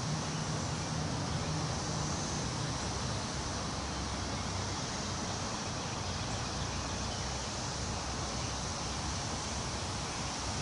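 Wind rustling through tree leaves, a steady rushing hiss, with a low steady rumble underneath.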